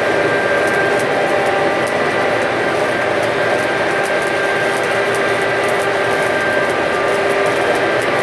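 Stick (SMAW) welding arc crackling steadily during an overhead weld, over the steady hum of the welding machine.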